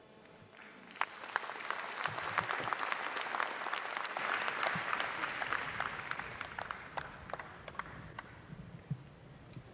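Large audience applauding, swelling about a second in, loudest midway, then dying away near the end.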